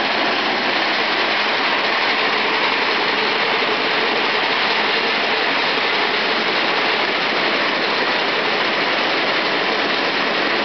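Peanut sheller machine running steadily: a loud, even mechanical rattle as pods are shelled and the kernels pour out of the outlet chute.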